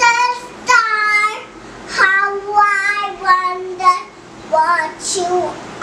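A young girl, about three years old, singing a nursery rhyme unaccompanied, in short phrases with brief pauses between them.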